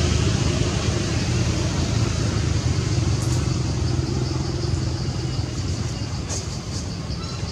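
Steady low hum of a running engine, with a few faint high ticks over the second half.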